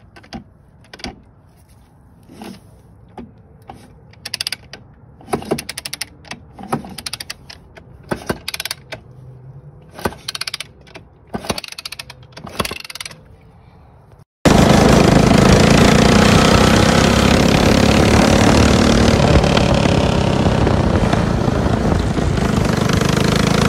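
A string of uneven sharp clicks and knocks, then, after a sudden cut about 14 seconds in, a go-kart's small engine running steadily and loudly as it drives.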